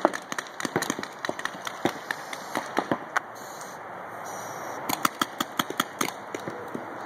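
Paintball markers firing in irregular volleys of sharp pops, with a burst of shots in the first couple of seconds, sparser shots after that, and another quick flurry about five seconds in.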